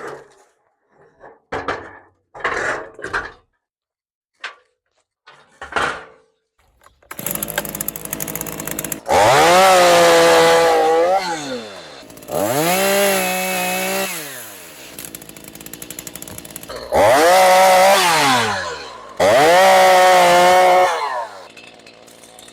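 A few short knocks and scrapes, then a Stihl MS 212 two-stroke chainsaw runs, revved in four loud bursts whose pitch rises and sags, dropping back near the end.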